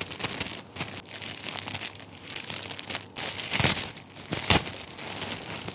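Metallic foil gift wrap crinkling and crackling as hands untie it and pull it open. There are two louder crackles, one about three and a half seconds in and one about a second later.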